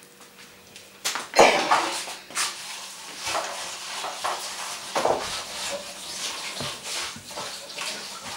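Metal loaf tins clattering and scraping as they are handled and set down on a kitchen counter, with repeated knocks and the loudest clank about a second and a half in.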